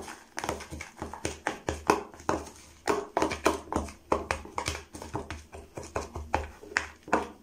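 Metal spoon stirring damp gingerbread crumbs in a plastic food container: irregular scraping and clicking strokes against the plastic, several a second.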